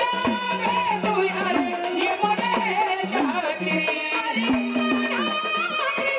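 Marathi gondhal folk music: hand drums beating a quick rhythm under a melody with gliding pitches.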